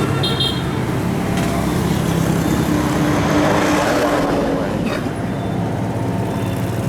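Heavy engine running steadily, with a held tone standing out for a couple of seconds in the middle.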